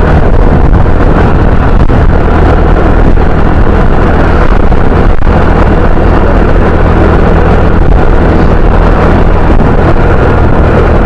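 Motor scooter riding along a road at a steady speed: engine hum and rushing wind over the microphone, unbroken throughout.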